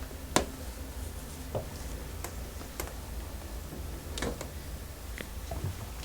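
Scattered small clicks and taps, one sharper click about a third of a second in and about half a dozen fainter ones after it, over a low steady hum.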